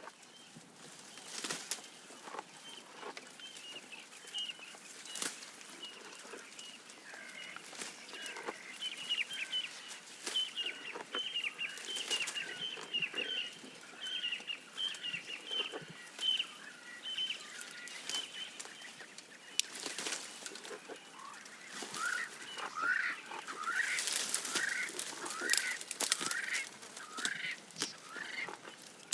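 Birds calling in quick series of short, high chirps, shifting later to a run of lower swooping notes, over scattered sharp crackles and snaps of leaves and twigs as a giraffe browses.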